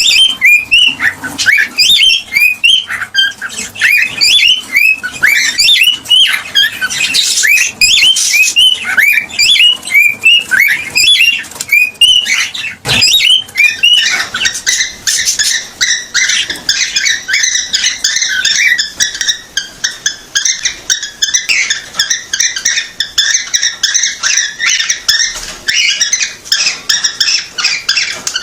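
Cockatiel chirping: a fast run of short whistled calls that bend up and down in pitch, several a second. About halfway through, after a sharp click, it changes to a denser, higher, continuous twittering chatter.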